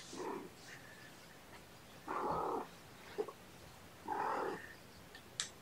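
A cat meowing: three calls of about half a second, roughly two seconds apart, after a fainter one at the start, with a short sharp click near the end.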